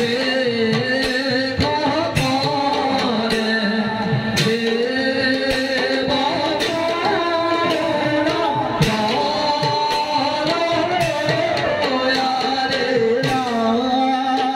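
Live music for a Bhaona, the Assamese devotional drama: a voice singing over frequent hand-drum strokes, with a held melodic accompaniment underneath.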